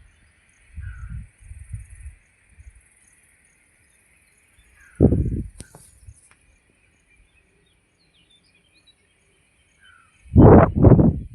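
Outdoor natural ambience: a steady high buzzing with a few faint bird chirps, broken by loud low rumbles on the microphone about five seconds in and again near the end.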